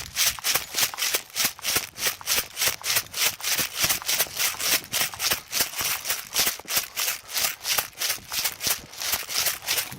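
Fast footsteps crunching through dry vegetation, a very regular rustling crunch about four times a second, the pace of someone running.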